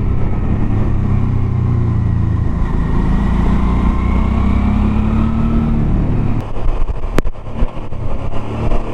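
Motorcycle engine running under way, its pitch rising slowly, then easing off about six seconds in as the throttle is rolled back. A sharp click about seven seconds in.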